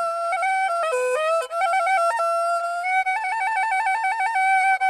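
Background music: a solo woodwind plays an ornamented melody, with quick trills between neighbouring notes in the second half.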